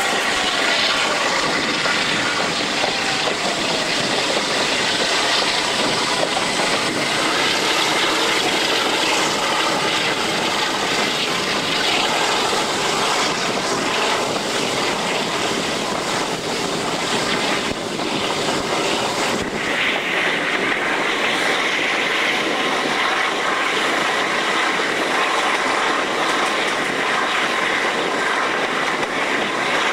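Train running at speed heard from an open carriage window: a steady rush of wind and running noise.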